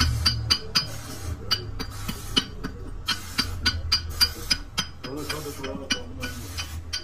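A small hammer tapping metal on the hub of a rusty bevel gear mounted on a gearbox shaft: quick, sharp clinks with a brief ring, about three to four a second, with a short pause near five seconds in. A steady low hum runs underneath.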